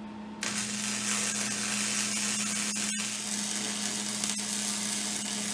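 Electric arc welding on a steel mower deck: a steady crackling hiss that starts about half a second in, breaks off for an instant near the middle, then carries on, over a steady low hum.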